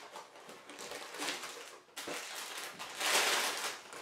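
Cardboard snack box being opened and a plastic wrapper pulled out and crinkled, with the loudest burst of crinkling about three seconds in.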